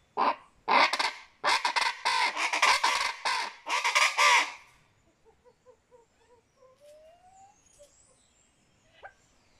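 A chachalaca's loud, harsh chant of rapidly repeated calls, lasting about four and a half seconds and then stopping.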